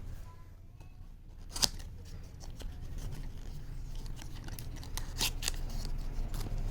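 Packaging being handled and opened by hand, with a few sharp clicks or snips: one loud one about a second and a half in and a cluster around five seconds in, over a low steady rumble.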